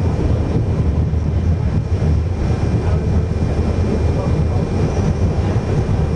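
Wuppertal Schwebebahn suspension railway car running along its overhead rail, heard from inside the cabin: a steady low rumble with a faint, steady high whine.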